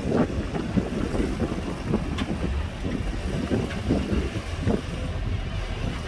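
Heavy diesel machinery running at a worksite: a dump truck tipping its load of sand and a Komatsu PC210 excavator working beside it. The sound is a steady low rumble with irregular knocks and clatter.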